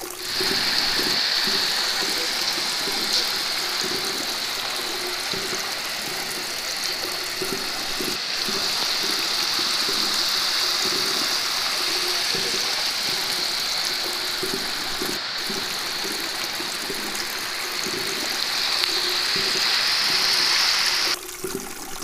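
Fountain water jets spraying and splashing: a steady rushing hiss that cuts off near the end.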